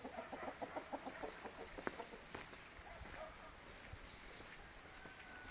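A chicken clucking: a quick run of short clucks in the first two seconds or so, then a few scattered faint ticks.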